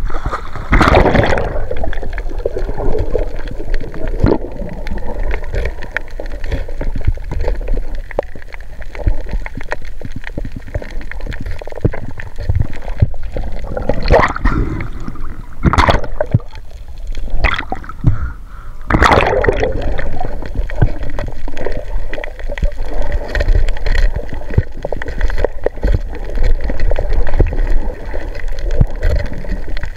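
Seawater sloshing and gurgling around the microphone, broken by several sudden louder splashes, one about a second in and a cluster of them in the middle.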